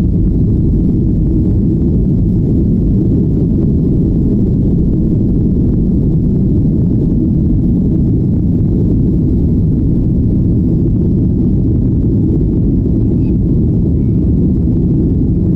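Jet airliner engines during takeoff, heard inside the cabin as a loud, steady low rumble that does not change.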